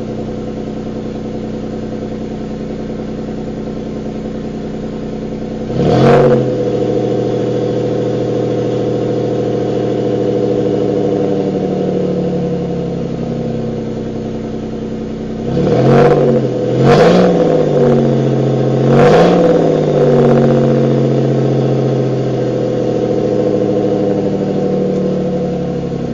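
Supercharged 3.8-litre V6 of a 2003 Pontiac Bonneville SSEi running through its exhaust at idle, revved once about six seconds in and then three quick times later, the pitch falling back to idle after each rev.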